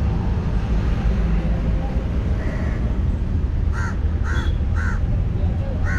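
A crow cawing: three quick caws about half a second apart, starting around four seconds in, then one more near the end, over a steady low rumble.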